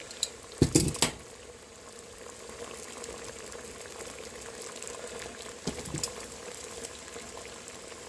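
Water at a rolling boil in a can, with a few sharp metal knocks about a second in and again near six seconds.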